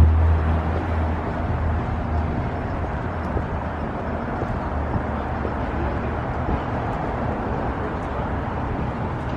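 Outdoor city street noise: a steady traffic rumble, with a low engine hum fading away in the first second.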